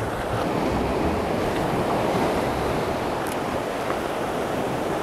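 Sea surf breaking and washing over a rocky shore: a steady rushing of waves.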